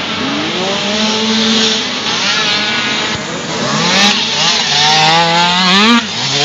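Dirt bike engines revving as the bikes accelerate out of a corner on a dirt track, several engine notes overlapping and climbing in pitch. The nearest bike is loudest from about four seconds in, its revs rising, then the sound drops away abruptly near the end.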